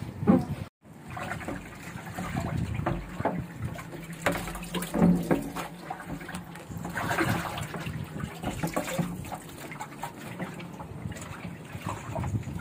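Wet sponge scrubbing the inside wall of a stainless water storage tank, with water splashing and dripping in irregular strokes.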